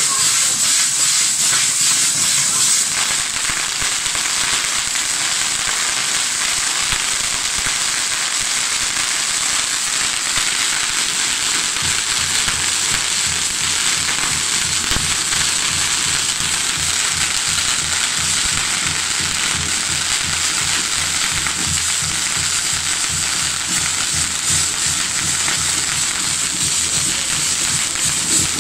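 Firework castle (castillo) burning: a steady, loud hiss of spark fountains with fine rapid crackling. From about halfway, a low rhythmic pulsing joins underneath.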